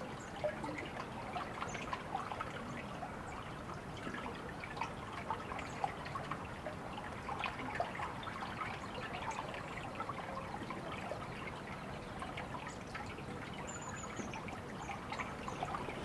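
Water trickling and babbling steadily, with many small splashes and drips. A brief high chirp comes near the end.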